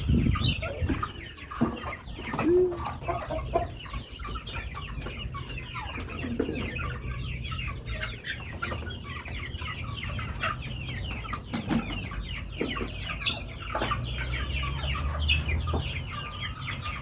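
A flock of chickens clucking and calling, many short overlapping calls, over a steady low hum.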